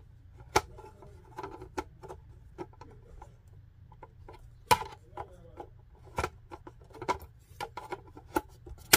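Hands handling the plastic casing of a Huawei 5G router: fingers rubbing and pressing on the shell, with irregular sharp clicks and taps, the loudest about halfway through.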